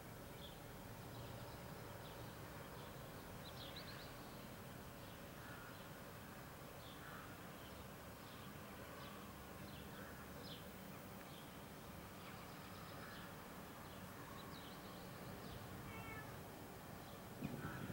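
Faint birds calling, short high chirps scattered every few seconds, with a quick run of falling calls near the end, over a steady low hum of city background. Just before the end a louder, uneven low rumble sets in.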